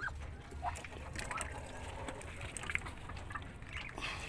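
Muscovy ducklings giving short peeps every second or so, over soft wet pecking and dabbling at the feed bowl.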